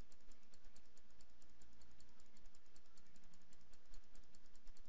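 Computer mouse clicked rapidly and steadily, about five clicks a second, placing stitch points one by one while digitizing an embroidery design.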